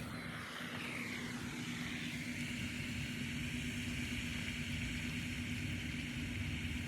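Engine of a passing vehicle: a steady low hum with a whine that falls in pitch over the first two seconds, then holds steady.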